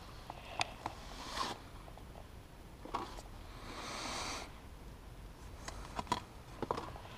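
Faint handling noises: a few light clicks and soft rustling of stiff paper cards being handled, with the loudest rustle around four seconds in.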